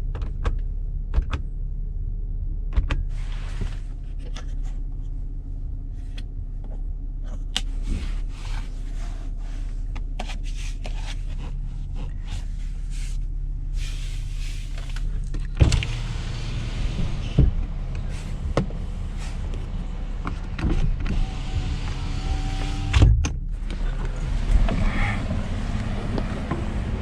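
Chevrolet Colorado pickup's 3.6-litre V6 petrol engine running at low speed, heard from inside the cab while crawling over an off-road course, with frequent knocks and rattles from the truck and cabin over rough ground. It grows louder about halfway through.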